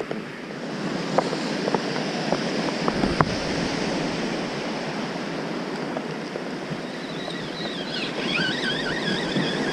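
Small waves washing onto a sandy beach, a steady surf noise with wind on the microphone and a few light knocks in the first few seconds. About seven seconds in, a wavering whine joins as a spinning reel is cranked to wind in the line.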